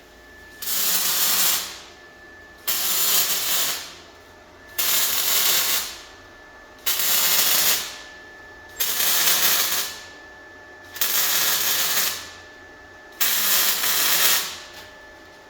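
Seven short bursts of an electric welding arc, each about a second long and spaced about two seconds apart, like a row of tack welds. Each burst cuts in sharply and fades out, over a faint steady high whine.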